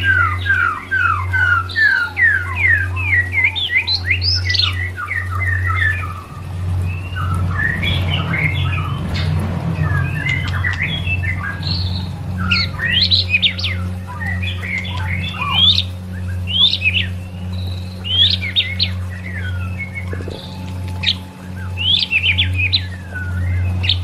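White-rumped shama (murai batu) singing: fast runs of quick rising and falling whistled notes and chirps, coming in bursts with short gaps, over a steady low hum.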